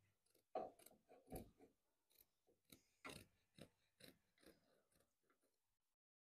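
Scissors cutting through carpet: a series of faint, short snips that stop about a second and a half before the end.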